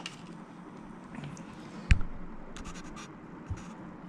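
Light scratching and rustling of a USB Type-C cable being handled and uncoiled, with one sharp tap about two seconds in and a few small ticks after it.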